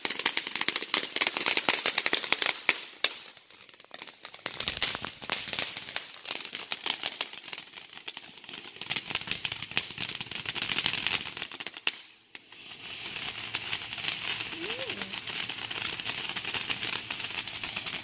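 Consumer fireworks crackling: a dense stream of rapid small pops, easing briefly about four seconds in and cutting out about twelve seconds in, followed by a steady high hissing spray.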